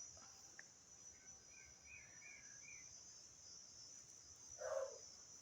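Steady, high-pitched chirring of crickets, faint under a quiet garden, with a few soft bird chirps in the middle and a brief louder sound near the end.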